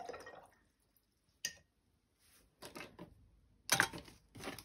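Small art supplies being handled and rummaged through by hand: a sharp click about a second and a half in, then a few short rustling, knocking bursts, the loudest near the end.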